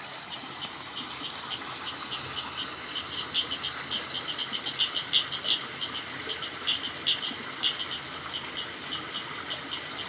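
Night chorus of frogs and insects: short high chirps, several a second in an irregular pattern, over a steady hiss.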